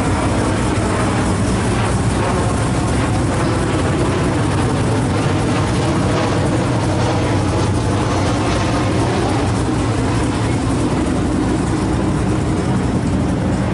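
An engine idling steadily, a low even sound that does not rise or fall.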